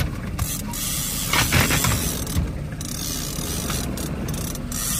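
Mechanical ratcheting clicks over the steady low hum of a boat motor.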